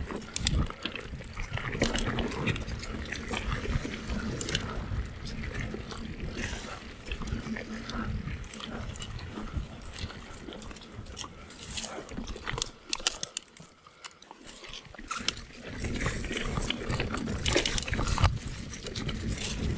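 A mountain bike riding down a rough, rutted rocky trail, heard on a GoPro mounted on the bike or rider: tyres on rock and gravel, the bike rattling over bumps and drops, and wind rumbling on the microphone. It eases off briefly about two-thirds of the way through.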